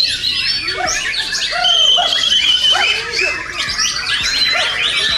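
Many white-rumped shamas singing at once in a dense, overlapping chorus of loud whistles and rising and falling phrases, with one long held whistle about two seconds in.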